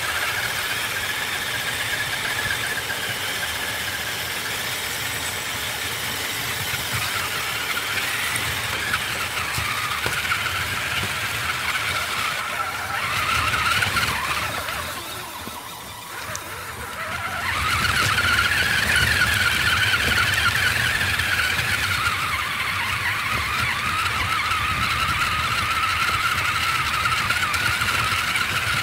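Electric motor and gear drivetrain of an RC rock crawler whining under throttle, the whine rising and falling in pitch as it crawls over rocks. It cuts out briefly about halfway through, then picks up again with a rising whine.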